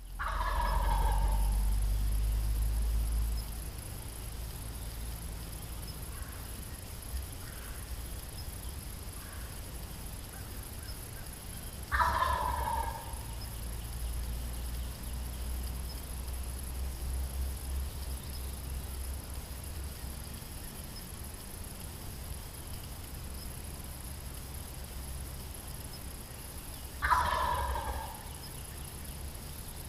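Wild turkey gobbler gobbling at a distance, three rattling gobbles each about a second long, spaced about 12 to 15 seconds apart.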